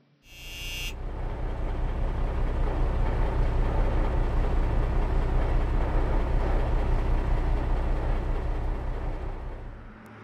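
A short bright swish just after the start, then a steady low rumble like a running vehicle that swells up over a second or two and fades away near the end.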